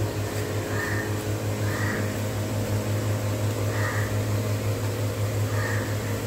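A steady low hum throughout, with a bird's short calls four times, a second or two apart.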